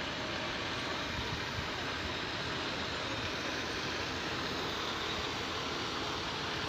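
Steady rumble of street traffic, a heavy truck among it, with no distinct engine note.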